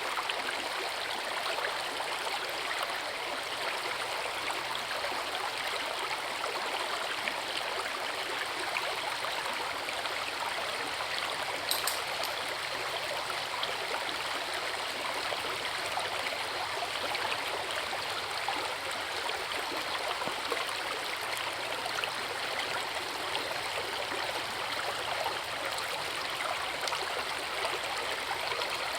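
Forest river flowing in a steady, unbroken rush of water, with one brief high click about twelve seconds in.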